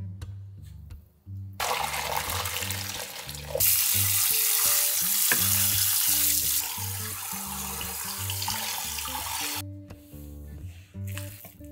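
Kitchen tap water running into a stainless-steel sink over a pan of boiled pork ribs as they are rinsed by hand. The water starts about a second and a half in, runs harder for a few seconds in the middle, and stops near the end. Soft background music plays underneath.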